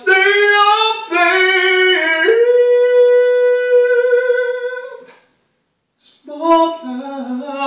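A man singing unaccompanied in a high voice: a few gliding notes, then one long held note of about three seconds, a second's pause, and more singing with a wavering pitch.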